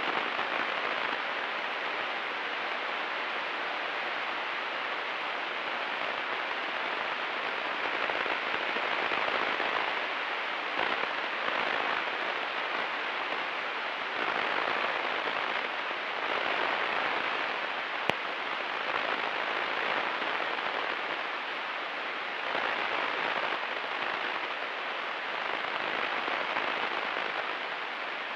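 Steady rushing cabin noise of a Cessna 172 Skyhawk in flight on final approach: airflow and engine blended into an even hiss that swells and eases slightly, with one small click about eighteen seconds in.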